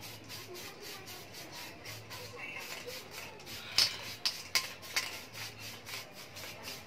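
Light rubbing and rattling as a spray-paint can and a motorcycle muffler hanging on a wire are handled, with four sharp clicks close together about four to five seconds in.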